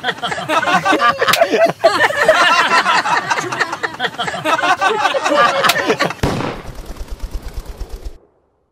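A dense, loud commotion of overlapping sound, broken by two sharp bangs about four seconds apart. Near the end a low, even pulsing sets in, and then everything cuts off to silence.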